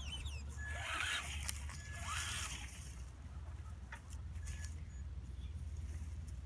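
Electric Traxxas Slash RC truck driving across grass in two short bursts of throttle, each a brief motor whine with tyre and grass noise, about half a second and two seconds in.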